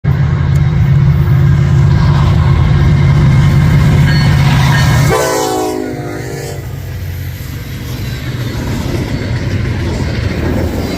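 Canadian National freight train passing close by, starting with a loud, low diesel locomotive rumble. About five seconds in, a locomotive air horn sounds one blast of about a second and a half. The quieter rumble of the railcars rolling by follows.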